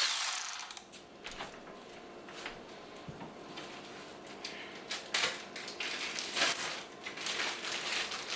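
Small metal parts clinking and clicking, most likely valve-cover bolts being handled and dropped together. A hiss at the very start dies away within the first second.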